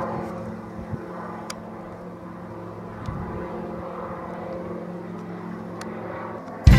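Steady droning of an engine, a low hum with several overtones held at an even pitch, with a few faint clicks. Loud music with bells cuts in right at the end.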